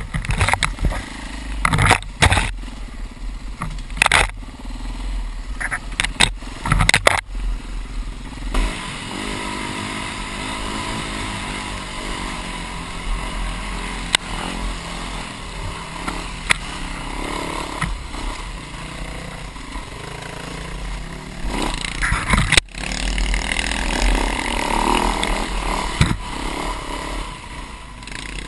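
Dirt bike engine running and revving up and down as it rides a rough bush track. For the first several seconds scrub and branches brush and knock against the rider's helmet in a run of sharp scrapes and thumps; after that the engine runs on steadily, with a few more knocks a little after halfway.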